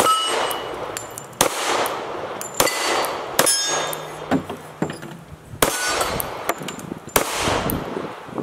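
Springfield XDS .45 ACP pistol fired in a slow string of about six shots, roughly one to two seconds apart, with AR-500 steel plates clanging and ringing as they are hit; a couple of the shots miss the steel.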